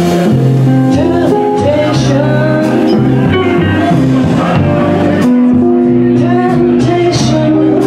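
Live blues band playing a slow song: electric guitar lines with bending notes over bass and drums.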